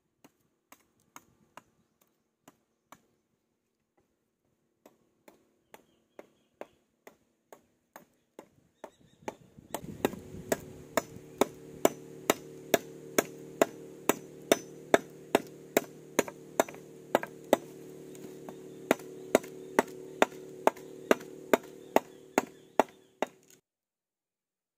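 Machete blade chopping a notch into a wooden log: a long run of sharp, evenly paced strikes, sparse at first and then louder and steadier at about two and a half a second. A steady low hum sits under the strikes from about halfway through, and both cut off suddenly near the end.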